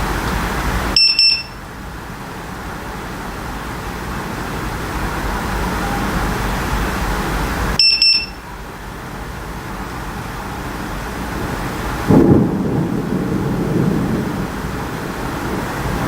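Strike Alert HD lightning detector giving two short clusters of high beeps, about a second in and again near eight seconds, each signalling a detected lightning strike, over the steady noise of heavy rain. About twelve seconds in, a low rumble of thunder breaks in and rolls on.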